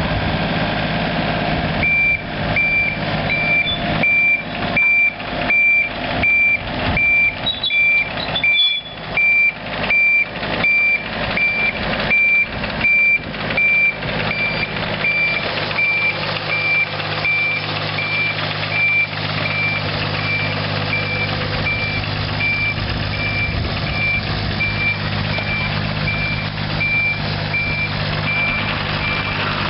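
2007 IHI 30NX-2 mini excavator's diesel engine running steadily while its travel alarm beeps at a steady rate of about two beeps a second, starting about two seconds in.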